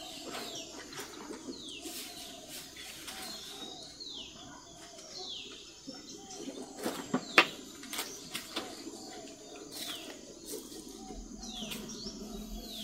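Birds calling: short falling chirps repeat about once a second or so, with softer low calls beneath. A few sharp clicks and knocks come through, the loudest a little past halfway.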